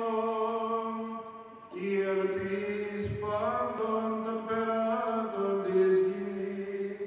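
Men chanting a Greek Orthodox Byzantine hymn in long held notes, a low sustained note under a melody that moves above it. The singing breaks briefly about two seconds in, then goes on.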